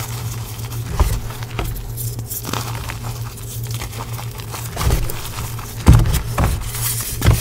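Hands crushing and squeezing handfuls of powdery reformed gym chalk: soft crumbling and crunching, with a few dull thuds, the loudest about six seconds in, over a steady low hum.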